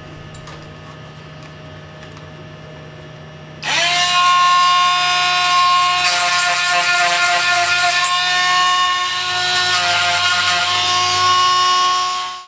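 Granberg G721 12-volt electric chain grinder grinding saw chain depth gauges. A faint motor hum gives way, about three and a half seconds in, to a loud steady whine and gritty hiss of the stone on the steel, which runs on and stops abruptly at the end.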